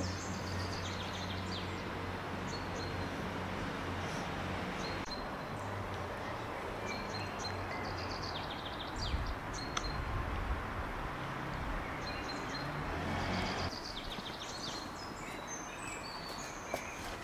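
Outdoor garden ambience: small birds chirping now and then over a low steady hum, which stops about fourteen seconds in.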